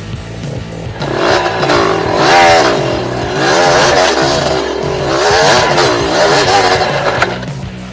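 Yamaha DT125 two-stroke single-cylinder dirt bike engine revving up and down in three swells as the bike is ridden over rough trail. The engine sound starts about a second in and cuts off near the end, with background rock music running faintly underneath.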